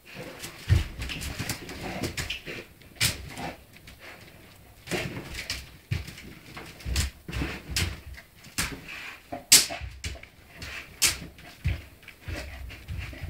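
Bull terrier digging and pawing at a cushion in a wicker dog basket: irregular scratching, rustling and creaking of the wicker, with low thumps as it shifts its weight.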